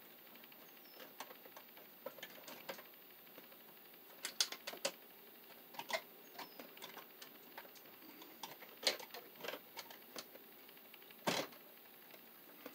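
Faint, irregular clicks and scrapes of bare copper ground wires being handled and twisted together under a wire nut, with a louder short scrape near the end.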